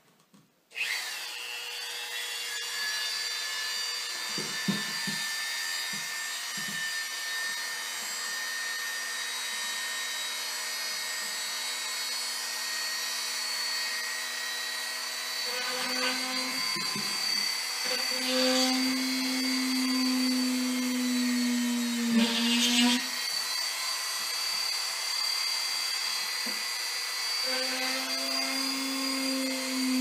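Dremel rotary tool starting about a second in and running at a steady high-pitched whine while drilling pilot holes in an acrylic panel. A lower note comes and goes several times in the second half.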